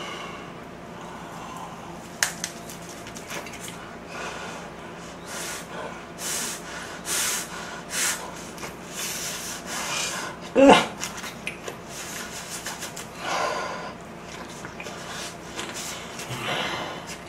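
A man eating close to the microphone: chewing, with repeated short breaths puffed out through the mouth as he copes with scalding-hot grilled kimchi. A brief voiced grunt comes about ten seconds in.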